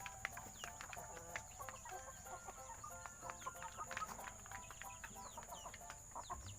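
A flock of free-range native chickens clucking softly, with many short taps and small chirps scattered throughout.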